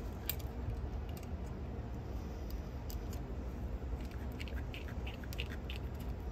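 Small irregular clicks and light scraping of a precision screwdriver turning screws into the metal frame of a cassette deck's tape transport, over a steady low background hum.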